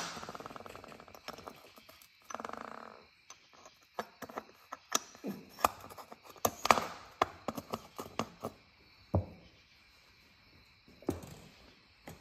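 Small metal clicks, taps and short scraping rattles from a steel wrist pin being slid in and out of a cleaned motorcycle piston over a steel workbench. Two duller knocks come near the end.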